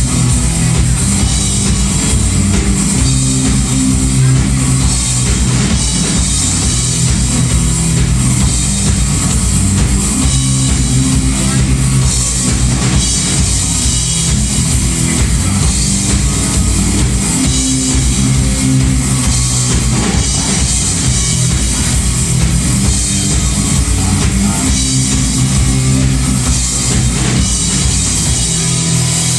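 Rock music with drums and guitar, playing continuously at a loud, steady level.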